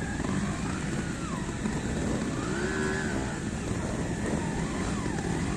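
Trials motorcycle engine revving up and falling back a few times, over a steady rumble of wind and outdoor noise.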